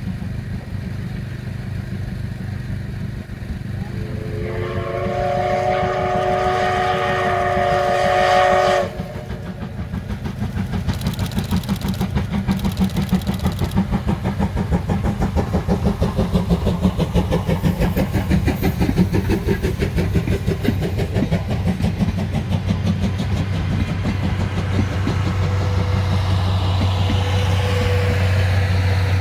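Steam locomotive sounding its whistle, a chord of several tones held for about five seconds that cuts off sharply, then working hard with a fast, even rhythm of exhaust chuffs.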